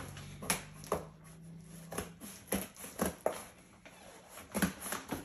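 Cardboard shipping box being opened by hand: its flaps pulled back and the box handled, giving a string of short, irregular knocks and scrapes.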